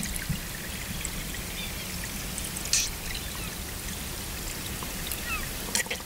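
Underwater recording of white suckers: a steady rush of flowing water with two short squelching pops from the fish, about three seconds in and near the end. Faint bird chirps sound in the background.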